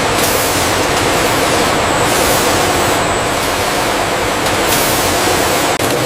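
Steady factory machinery noise: a dense, even hiss with a faint hum underneath, broken off for an instant near the end.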